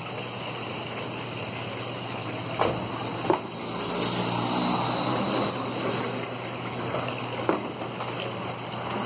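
Water trickling and splashing from a small decorative rock waterfall into its pool, over a steady low hum, with a few brief clicks.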